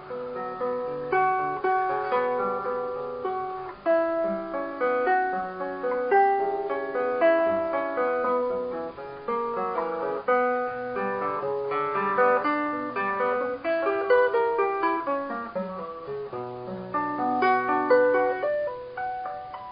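Solo classical guitar played fingerstyle on nylon strings: a run of plucked melody notes over lower held bass notes, each note starting sharply and ringing away.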